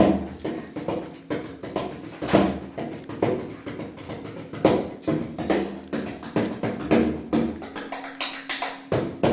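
Bodhrán (Irish frame drum) played in a quick, uneven run of strokes with louder accents every second or two.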